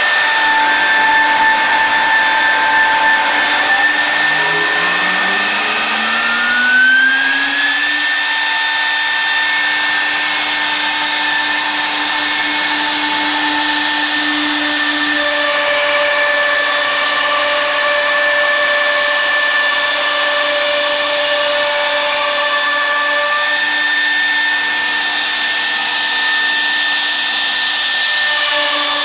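CNC router's electric spindle running with a steady whine over a continuous hiss as the bit routes a curved groove into a wooden cabinet door panel. About four seconds in, a whine rises in pitch over a few seconds and then holds steady.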